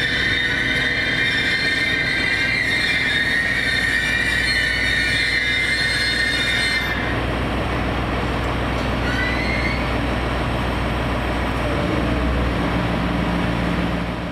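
JR East GV-E400 series diesel-electric train running with its wheels squealing, a steady high screech. About halfway through the squeal stops abruptly and a lower running rumble carries on.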